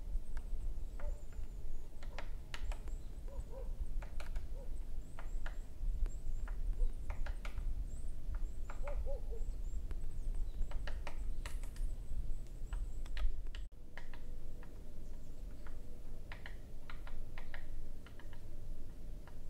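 Footsteps crunching on frozen forest ground, irregular sharp steps, over a low rumble of wind on the microphone, with a few short low calls in small groups now and then.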